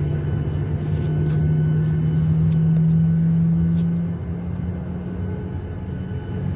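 Airliner cabin noise: a steady jet-engine rumble with a low drone that swells, then drops back about four seconds in.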